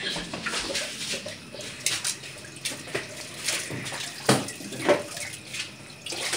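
Pinakbet vegetables simmering in their broth in a non-stick frying pan, a steady bubbling, with a few sharper knocks of pan or utensil.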